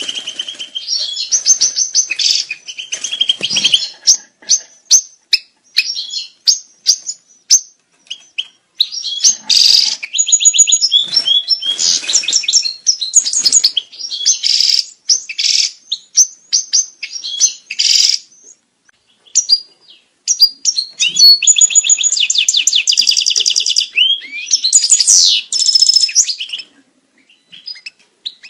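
European goldfinch singing its breeding-season courtship song: a fast, tinkling twitter of short high notes mixed with buzzy trills, including one long rapid trill about three-quarters of the way through, broken by a couple of brief pauses.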